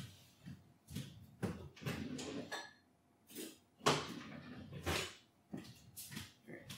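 Kitchen utensils clattering and knocking as someone rummages for a whisk: a run of short clicks and knocks with brief scrapes, the sharpest knock about four seconds in.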